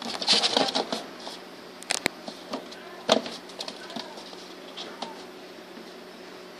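Rustling and scattered sharp clicks and taps as kittens move about a wire cage with the phone held close, the rustling densest in the first second.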